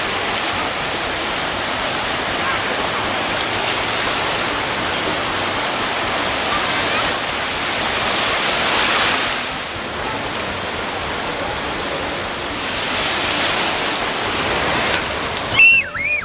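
Ocean surf washing up on the beach: a steady rush of breaking waves that swells twice, about halfway through and again near the end. Just before the end there is a brief high-pitched cry from a voice.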